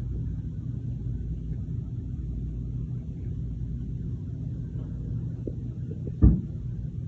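A steady low rumble, with one short thump about six seconds in.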